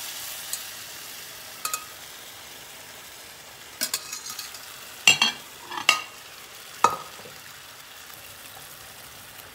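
Chicken stock poured through a metal mesh strainer into a hot pan of rice, a steady hiss that fades over the first couple of seconds. Then several sharp metal clinks and clanks, loudest a little past the middle, as the strainer and stainless steel pot knock together and are set aside, over a faint continuing sizzle.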